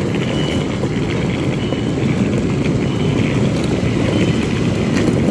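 Queensland Rail electric train standing at the platform with its doors open, giving a steady low rumble. Faint short high beeps repeat about once a second.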